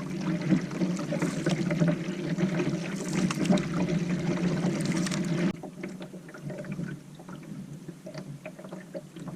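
Water trickling and splashing off a canoe paddle as the canoe is paddled. The sound drops off suddenly about five and a half seconds in, leaving quieter small drips and knocks.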